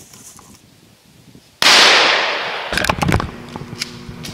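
A single gunshot about a second and a half in, loud and sudden, its echo dying away over about a second, followed by scattered clicks and crackles.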